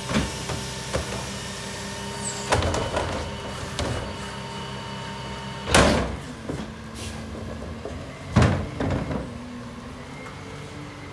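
Freightliner garbage truck's engine idling steadily behind a series of knocks and bangs from a plastic garbage cart being emptied into the rear-loader hopper and wheeled back, the two loudest bangs about six and eight and a half seconds in.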